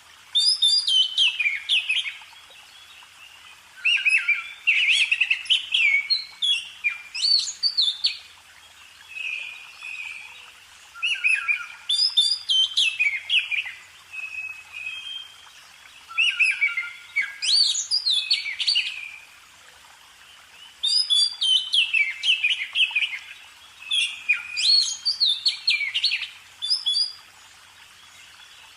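A songbird singing: phrases of about two seconds, each a quick run of high notes, repeated every few seconds, with softer calls in the pauses.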